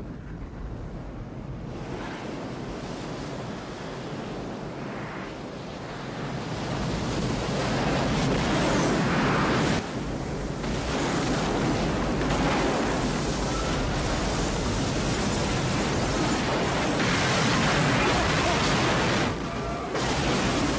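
Film sound effects of a comet impact and the tsunami it raises: a continuous rushing, rumbling noise like surf and wind, growing louder about six seconds in, with brief dips near ten and nineteen seconds.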